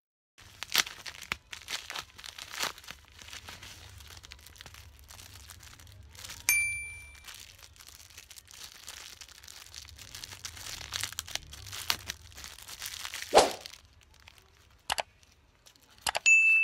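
Thin plastic packaging crinkling and crackling in the hands as a phone case is unwrapped, with a louder crunch about thirteen seconds in. A short electronic ding sounds about six seconds in and another near the end.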